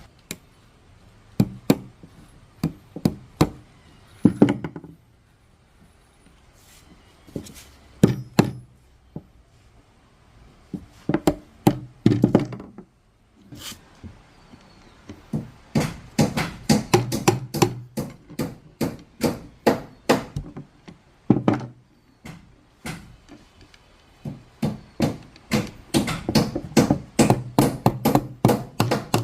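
Sharp knocks on a hard surface, like hammering or tapping on wood. They come singly and in short clusters at first, then in quicker runs of several a second through the second half.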